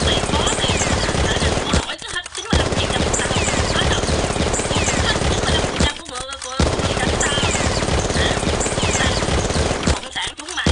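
Rapid automatic gunfire sound effect in long bursts, broken by brief pauses about 2, 6 and 10 seconds in.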